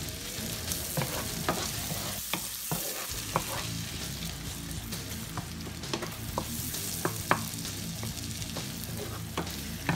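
Shrimp and chopped onion sizzling in hot fat in a nonstick frying pan, stirred with a wooden spatula that taps and scrapes the pan at irregular moments.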